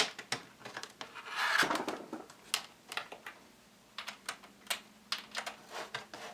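A USB cable being handled and its plug pushed into a laptop's side port: a string of light clicks and taps, with a brief rustling scrape about a second and a half in.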